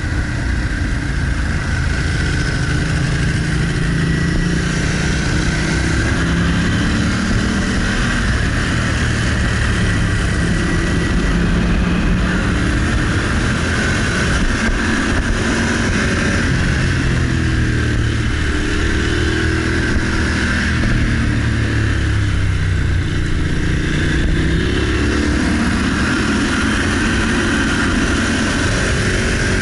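Motorcycle engine running under way, its revs rising and falling again and again with throttle and gear changes, over a steady rush of wind noise.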